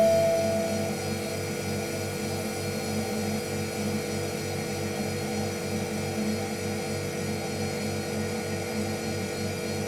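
Steady machine-like hum with an even pulse of about four beats a second. A clear bell-like ping, struck just before, fades out in the first second.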